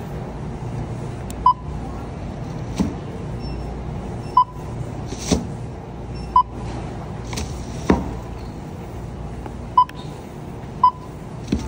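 Checkout barcode scanner beeping as groceries are scanned: five short, identical beeps one to three seconds apart, with knocks of items being set down between them.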